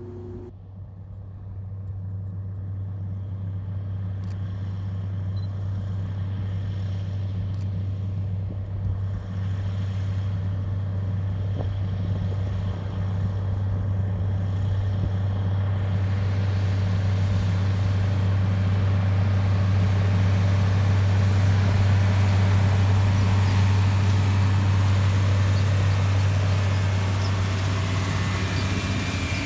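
Case IH 7110 Magnum tractor's 8.3-litre six-cylinder diesel running steadily under load while pulling a 12-row Cyclo Air planter, a low drone that grows louder as the tractor approaches. About halfway through, a broad rushing noise builds as the planter passes close.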